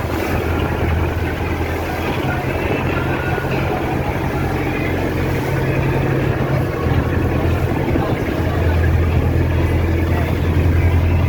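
Motorboat engine running with a steady low hum, over the rushing noise of water and wind.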